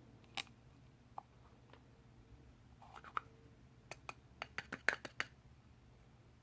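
Light clicks and taps of small plastic makeup containers being handled and opened: a few scattered clicks, then a quick run of about eight a little past the middle.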